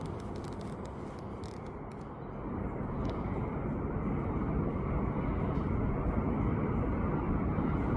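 Steady low rumble of distant vehicle noise outdoors, growing gradually louder from about two seconds in.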